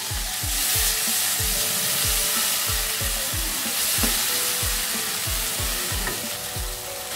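Potato and pea masala sizzling in a non-stick wok with a little added water as it is stirred with a wooden spatula. Background music with a steady beat plays underneath.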